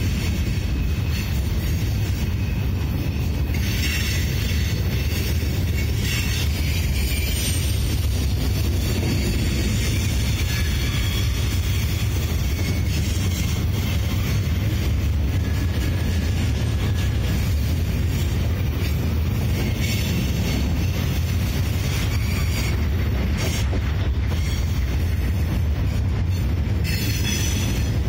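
Freight train of open-top gondola cars rolling past at close range: a steady heavy rumble of steel wheels on rail, with brief surges of higher-pitched wheel noise now and then.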